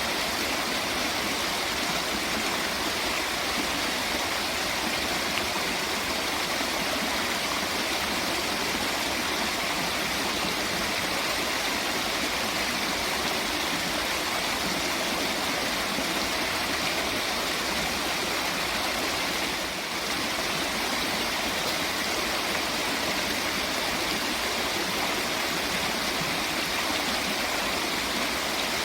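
Steady rush of flowing water, an even wash of sound that dips only slightly once, about two-thirds of the way through.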